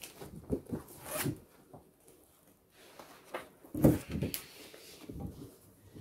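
Pages of a large paper picture book being turned and handled: paper rustling and flapping in short scrapes, loudest just before four seconds in.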